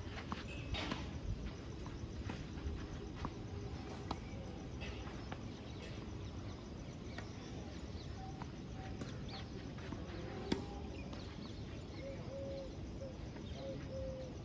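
Open-air background noise with scattered sharp knocks of a tennis ball off rackets and the clay court, one clearly louder crack about ten and a half seconds in. Faint short bird calls now and then.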